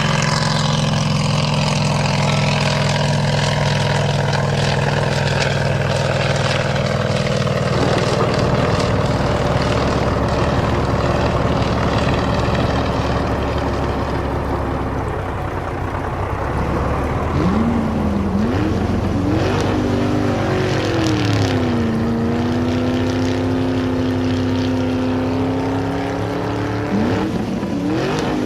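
Cartoon vehicle engine sound effect: a steady engine drone, then from a little past halfway the engine revs, its pitch rising, dipping and holding, and rising again near the end.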